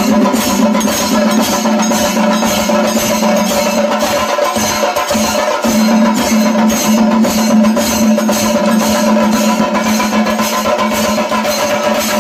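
Chenda melam percussion: drums and cymbals beating a steady, even rhythm over a held droning tone.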